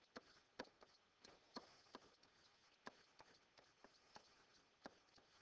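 Faint, irregular tapping and ticking of a stylus writing on a tablet screen, about a dozen light clicks.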